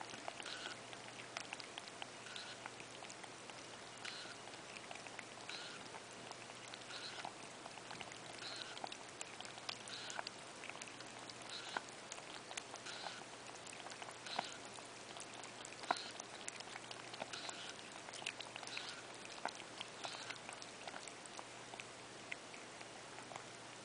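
A cat drinking water, lapping with her tongue in a run of small wet clicks and splashes.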